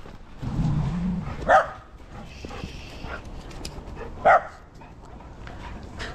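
A dog barking twice, about three seconds apart, with a lower rumbling sound shortly before the first bark.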